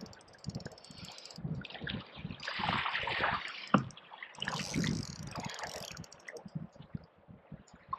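Spinning reel clicking fast as a hooked fish is played and wound in from a kayak, with water slapping and lapping against the plastic hull in bursts. One sharp knock about halfway through.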